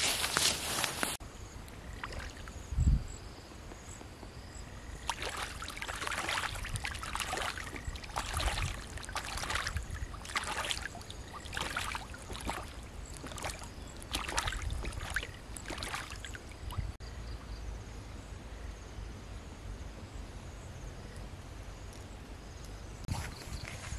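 Water splashing and sloshing as a duck swims and flaps in shallow water, a run of irregular splashes about one a second that dies away after about sixteen seconds. A single dull thump comes a few seconds earlier and is the loudest sound.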